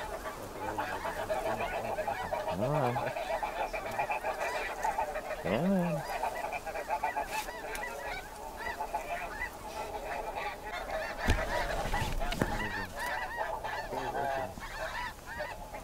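A large flock of snow geese calling continuously overhead, a dense chorus of many overlapping honks. Two dull knocks come about a second apart two-thirds of the way through.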